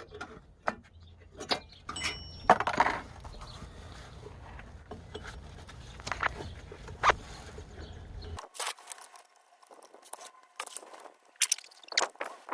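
Hand tools and metal parts clinking and knocking in scattered, separate strikes, a few louder knocks among them, over a low hum that stops abruptly about eight seconds in.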